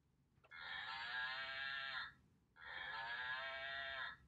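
Plush toy cow's built-in sound mooing: two long moos in a row, a third beginning near the end.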